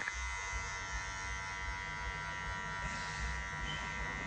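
Electric hair trimmer buzzing steadily as it cuts along the hairline.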